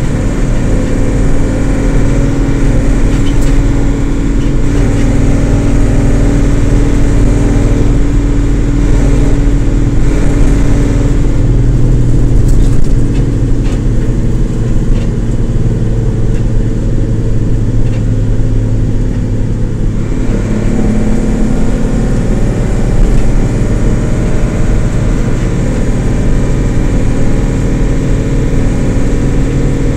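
Isuzu LT133P bus engine running steadily, a loud drone whose pitch steps down and up a few times. The higher part of the sound drops away for several seconds around the middle.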